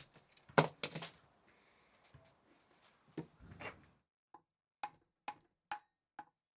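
A few knocks and scrapes of handling on a gearbox casing. Then six sharp, evenly spaced metallic taps, about two a second, each with a short ring: a hammer striking the gearbox casing to break the silicone seal between its two halves.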